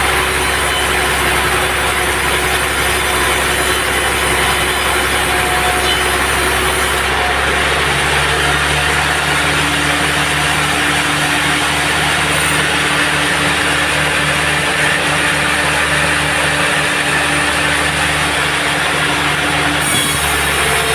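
Band sawmill machinery running steadily with a loud mechanical hum; its pitch changes about a third of the way in and changes back near the end.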